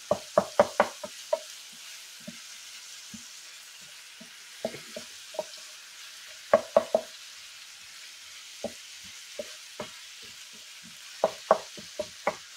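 Wooden spatula tapping and scraping against an electric skillet while breaking up and stirring ground beef and sausage, in quick clusters of sharp knocks at the start, in the middle and near the end. Under it the meat sizzles steadily as it fries.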